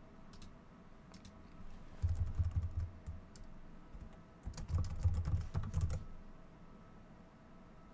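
Typing on a computer keyboard: quick clusters of key clicks in two bursts, the first about two seconds in and the second about four and a half seconds in, with scattered single keystrokes around them.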